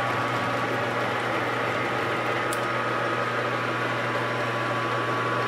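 Grizzly G4003 12x36 gear-head lathe running under power with its lead screw turning and driving the carriage in threading feed: a steady mechanical hum with a constant whine above it.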